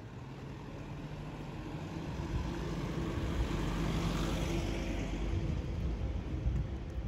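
An SUV driving past close by: engine hum and tyre noise grow louder to a peak about four seconds in, then ease off.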